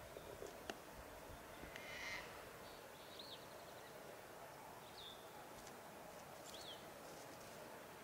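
Quiet outdoor background with a few faint, short, high chirping calls, one every second and a half or so, and a brief faint rustle about two seconds in.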